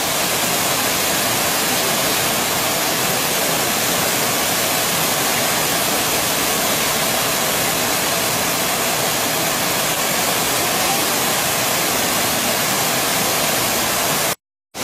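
Waterfall rushing steadily, an even unbroken hiss of falling water.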